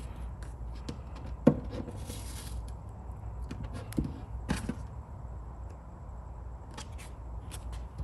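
A vinyl graphic sheet handled and pressed against a car's fender: a sharp tap about one and a half seconds in, another at four seconds, and short rustles of the sheet, over a low steady hum.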